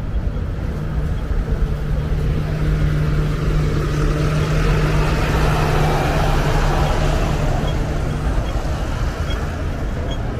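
Street traffic with a bus engine running close by, its steady low drone and tyre noise swelling to a peak about halfway and easing off. Faint high ticks about twice a second come in near the end.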